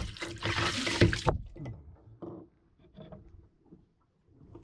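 Sea water gushing up through the open through-hull fitting as the paddlewheel speed transducer is pulled out. The sudden rush lasts about a second, then dies down to a few smaller splashes and knocks.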